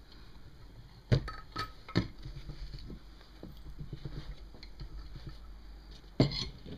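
Metal clicks and light ticking from a homemade C-clamp valve spring compressor being worked on a motorcycle cylinder head to free the valve's split keepers. Two sharp clicks about a second and two seconds in, then scattered light ticks, and a louder clatter of metal near the end.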